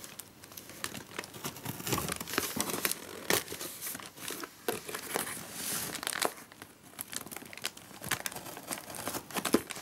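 Printed plastic packing tape being peeled and pulled loose from a cardboard box, with crinkling and crackling of the tape and rustling of the cardboard flaps in a run of short clicks.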